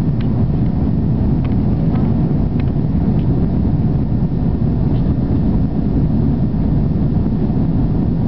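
Steady rumble of an Airbus A340-600's cabin in flight, from its jet engines and the airflow over the fuselage, heard from the rearmost row. A few faint clicks sound over it.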